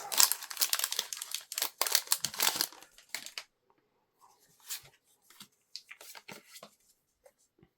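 Foil booster pack wrapper crinkling and tearing open for about three and a half seconds. Then come scattered quiet rustles and small clicks of the cards being handled.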